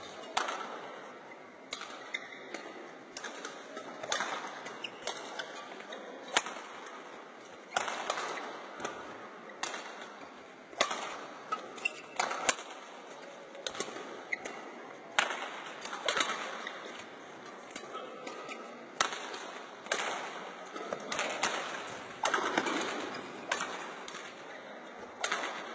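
Badminton rackets striking a shuttlecock in a practice rally: sharp, irregular cracks about once a second, echoing in a large hall.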